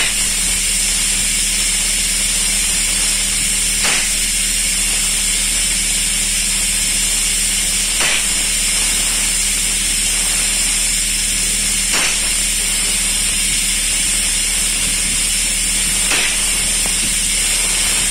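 Paint spray gun on a long extension wand spraying paint onto a steel ship hull: a steady, loud hiss, with a low machine hum underneath and a faint tick about every four seconds.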